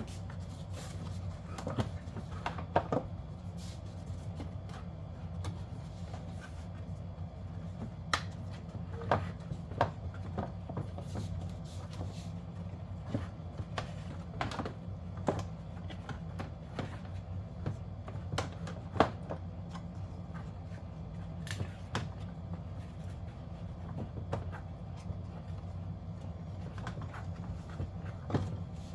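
Plastic HVAC housing halves and damper door shafts knocking and clicking irregularly as they are wiggled together to line the shafts up with their holes, over a steady low hum.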